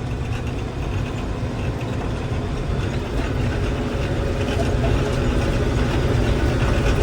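Combine harvester running steadily while harvesting wheat, its engine and machinery a low rumble that grows gradually louder.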